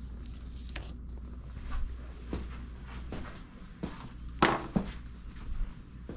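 Footsteps and light handling knocks and rustles, with a louder sharp clack about four and a half seconds in, over a steady low hum.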